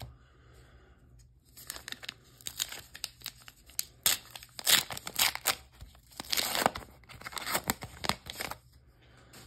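Foil-lined wrapper of a Flesh and Blood Dynasty trading-card booster pack being torn open by hand: a run of crinkling and tearing that starts about a second and a half in and dies away near the end.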